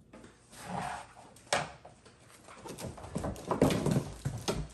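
Rustling of plastic wrapping and cardboard, with knocks and rattles of a mower's metal-framed grass bag being pulled out of its shipping box. The handling gets busier and louder in the last second and a half.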